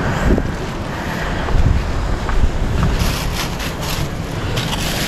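Wind buffeting the microphone over the wash of the sea, a rough, uneven rumble. From about three seconds in, a run of short scuffs and rustles sounds above it.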